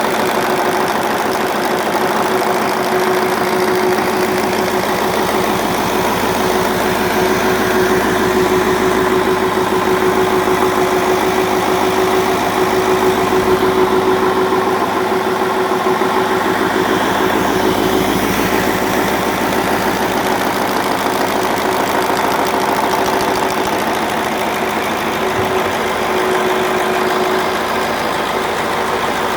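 YaMZ-7511 V8 turbodiesel running at a steady speed, with its cooling fan driven constantly off the engine; a steady note runs through the engine sound.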